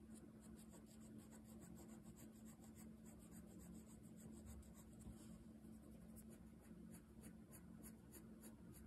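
Faint pencil graphite scratching on drawing paper in quick, even shading strokes, about four a second, with a short pause a little past halfway.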